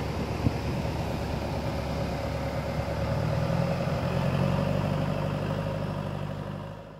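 A backhoe loader's diesel engine running steadily, coming in about three seconds in and fading out at the end. Before it there is a steady noisy background.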